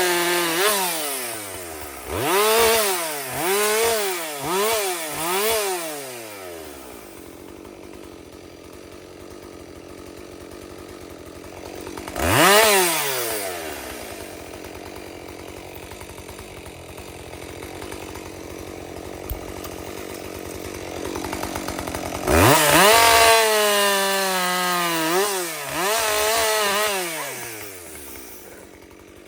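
Chainsaw revved up and down in short bursts, dropping back to idle between them, with a longer spell at high revs near the end.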